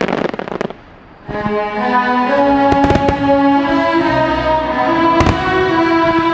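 Fireworks crackling that dies away within the first second, then orchestral music with sustained strings, broken by a few sharp firework bursts.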